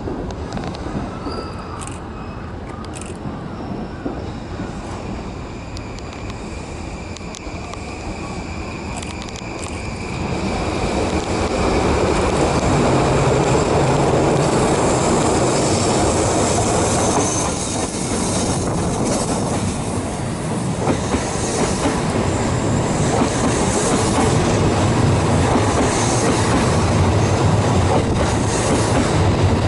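A delivery train hauling a new E235 series electric train set rolls into a station: steady wheel-on-rail running with clicks over the rail joints and a high wheel squeal. It gets clearly louder about ten seconds in as the train comes close.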